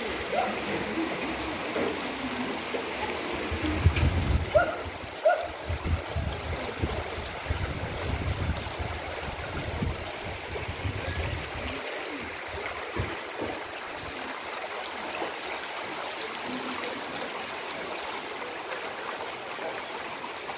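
Muddy floodwater rushing down a flooded road: a steady rushing, gurgling noise. Irregular low rumbles come in about four seconds in and fade out by about twelve seconds.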